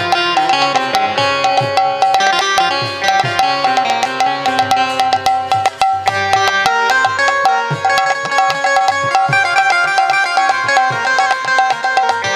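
Instrumental devotional kirtan music: a hand drum plays a rhythm of low, pitch-bending strokes, with dense clicking percussion over a sustained melodic line.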